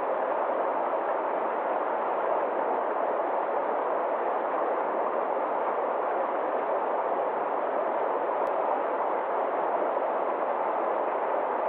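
Mountain stream rushing over small cascades and rocks, a steady, even rush of water.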